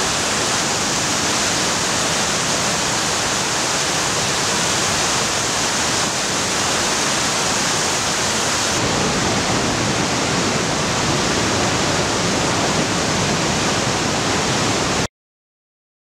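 The Jordan River's fast whitewater pouring over a rock ledge and through boulder rapids: a loud, steady rush of falling water. About nine seconds in it becomes fuller and deeper, and about a second before the end it cuts off suddenly.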